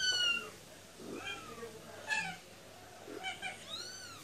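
Kittens mewing while nursing at their mother. About five short, high-pitched mews, each falling or arching in pitch; the first, right at the start, is the loudest.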